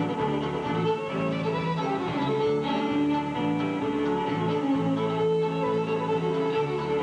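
Two fiddles playing a tune together, backed by acoustic guitar and electric bass.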